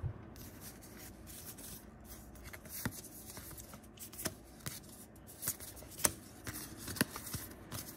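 Yu-Gi-Oh trading cards being flipped through by hand, sliding and rubbing against each other, with a handful of sharp clicks as cards are tapped or snapped into the stack.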